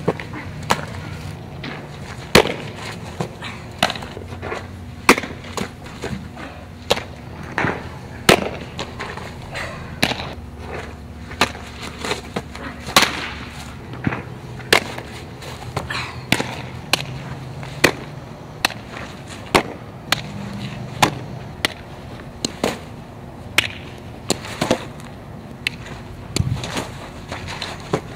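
Softballs smacking into a catcher's mitt, a fielder's glove and catcher's gear during catching and blocking drills: a run of sharp pops, often one or two a second, over a steady low hum.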